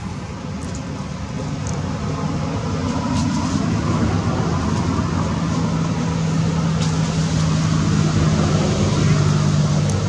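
A motor engine running steadily, its low hum growing louder over the first few seconds and then holding level.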